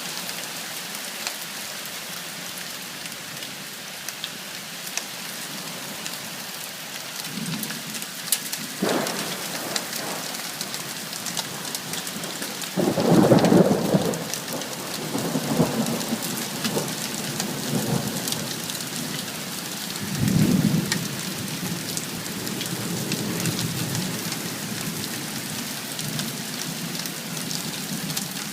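Heavy rain falling steadily with scattered sharp ticks of drops striking, while thunder rumbles several times, loudest a little before halfway through and again about two-thirds of the way in.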